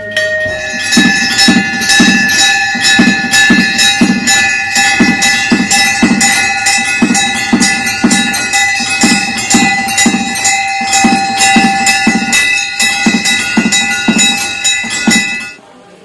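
Temple bells ringing under rapid, continuous strikes, several bell pitches held throughout, over a drum beating about twice a second. It stops suddenly near the end.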